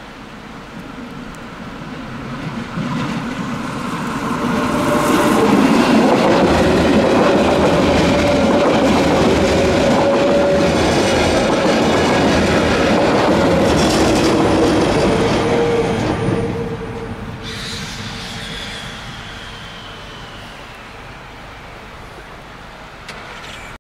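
A Matterhorn Gotthard Bahn metre-gauge train passing. Its running noise builds over the first few seconds and stays loud for about ten seconds with a steady high tone over it. It then fades away, with a falling whine trailing off.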